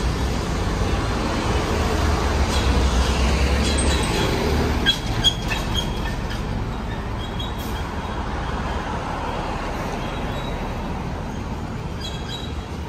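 Motor vehicle and road traffic noise: a steady low engine rumble, heavier for about the first five seconds, with a few light clicks and rattles.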